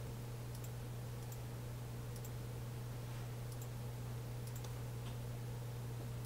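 A series of faint computer mouse clicks, irregularly spaced, as edges of a CAD model are selected one after another, over a steady low hum.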